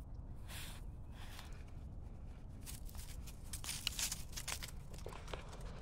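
Light crackling and rustling of dry grass, leaves and twigs as a dog roots about and walks over them, busier a little past the middle, over a low steady rumble.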